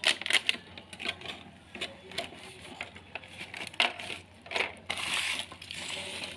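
Clear plastic packaging crinkling as it is handled and pulled off, a run of short sharp crackles with a longer, denser rustle about five seconds in.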